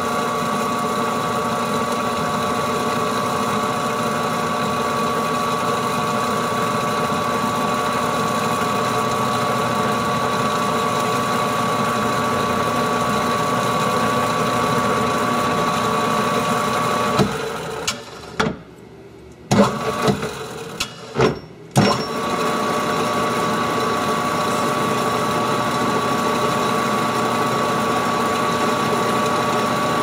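Metal lathe running steadily, its motor and gearing giving a constant whine. About 17 s in the running sound drops away for roughly four seconds with a few sharp clicks and knocks, then returns suddenly.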